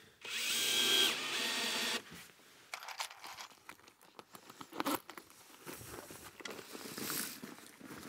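Cordless drill driving a screw partway into a wooden board, its motor whining steadily for about two seconds. It is followed by faint clicks and rustles of handling.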